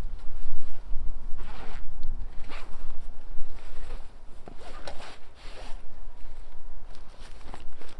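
Backpack zipper being pulled open in several short strokes, with fabric rustling as a packed stuff sack is lifted out.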